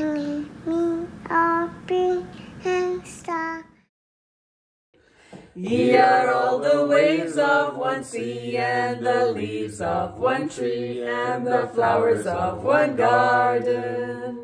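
A young girl sings a few short, separate notes of a prayer. After a brief silence, a small group of men and women sing together unaccompanied, with a steady low note held underneath.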